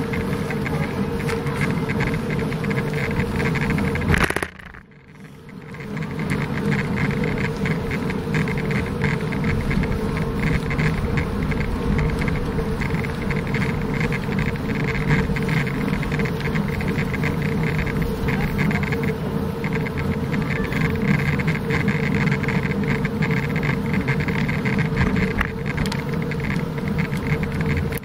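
Wind rushing over the microphone of a camera riding on a bicycle, a steady buzzing rush mixed with tyre noise on the paved road. It drops out suddenly about four and a half seconds in and builds back up over a second or so.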